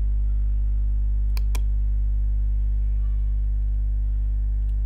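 Steady low electrical mains hum on the recording. Two quick clicks come about a second and a half in, close together like a double-click on a computer mouse, and a faint click comes near the end.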